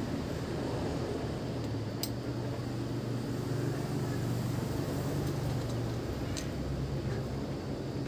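Road traffic noise: a steady low rumble of vehicle engines, with two faint clicks about two seconds and six seconds in.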